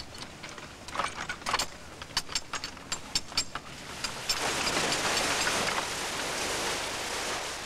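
Canal lock paddle gear being wound up with a windlass, its ratchet giving a run of sharp clicks. About four seconds in, a steady rushing of water starts as it pours into the lock chamber through the raised paddles.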